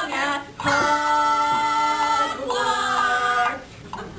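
A group of voices singing a cappella: a short phrase, then a long held chord that stops about three and a half seconds in.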